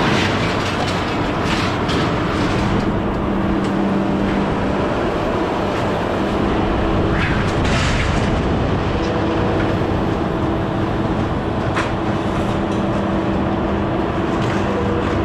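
A vehicle engine running steadily with a low hum, and a few brief knocks around the middle.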